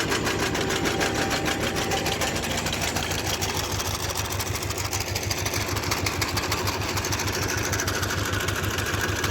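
Tractor engine running with a segment sickle-bar mower's reciprocating knife clattering rapidly and evenly.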